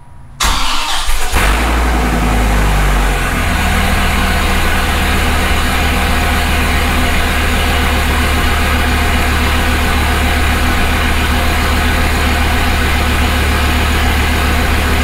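Dodge Viper V10 cold start: the engine cranks and catches about half a second in, runs at a high, uneven fast idle for a couple of seconds, then settles into a steady, rumbling idle.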